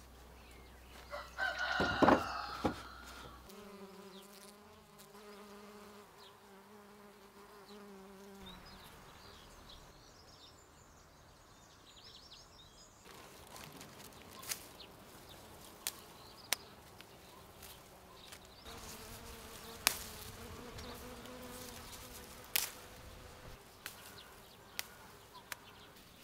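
A wooden-framed mesh drying screen knocks onto a wooden table about two seconds in. An insect then buzzes steadily in two spells, with scattered sharp clicks as rose petals are plucked by hand into a wicker basket.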